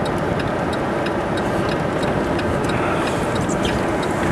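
Steady rushing noise of wind and rain against a vehicle, heard from inside the cabin, with faint rapid ticks throughout.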